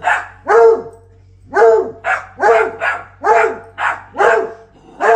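A dog barking loudly over and over, about two barks a second, each bark short and dropping in pitch, with a short pause about a second in.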